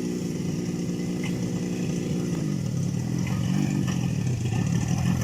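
IZh Jupiter-5 motorcycle's two-stroke twin engine running under throttle off-road. It holds a steady pitch, drops about two seconds in, then rises and falls as the throttle is worked.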